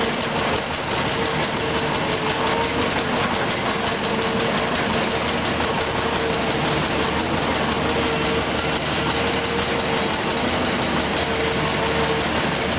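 Volvo EC210B hydraulic excavator's six-cylinder diesel engine running steadily at working speed while it digs, with a steady whining tone over the engine noise.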